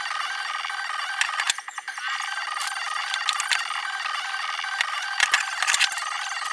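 Metal tool and cable lug clicks and rattles as copper lugs are fitted to heavy battery cable and worked in a crimping tool, over a steady high-pitched hum.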